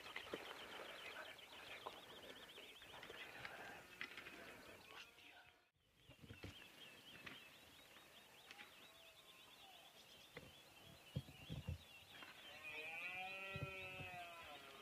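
Faint open-air ambience with high chirping, and near the end a drawn-out animal call of about two seconds with a wavering, arching pitch.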